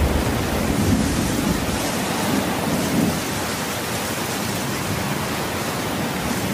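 Thunderstorm sound effect: steady hissing rain with rumbles of thunder, heaviest in the first three seconds.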